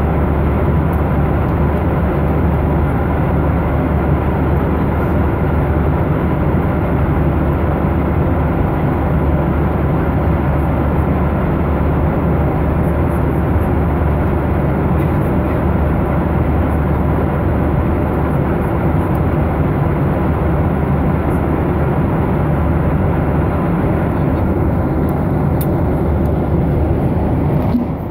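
Steady jet airliner cabin noise at cruise: the even rush of the engines and airflow, heaviest and deepest in the low range, with a faint steady hum and no change in level.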